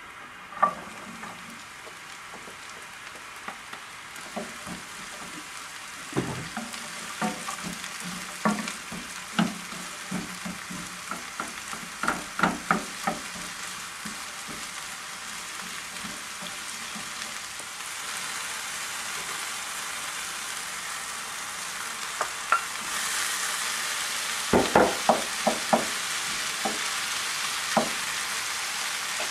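Diced vegetables stir-frying in a frying pan: a steady sizzle with scattered clicks and taps of a wooden spatula against the pan. The sizzle grows louder about two-thirds of the way in.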